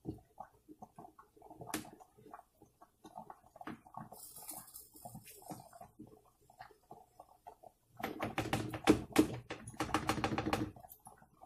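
A spatula scraping and tapping against a skillet while stirring browned ground beef and vegetables: scattered light clicks at first, then a busier, louder run of scraping strokes about eight seconds in.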